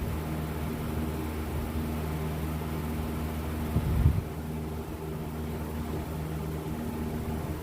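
Steady machine hum of a motor running, with one short knock about four seconds in.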